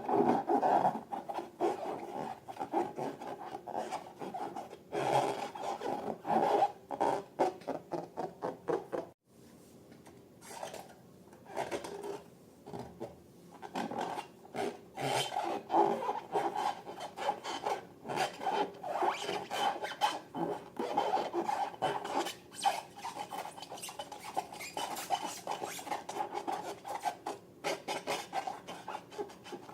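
Slime being squished and worked by hand, a dense run of rapid sticky clicks and crackles. It breaks off sharply about nine seconds in, then starts again quieter and builds back up.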